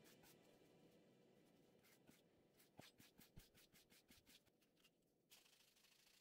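Faint, quick scratching strokes of sandpaper on a hand sanding block rubbed over a rusted steel ratchet wrench, about five strokes a second, stopping about five seconds in.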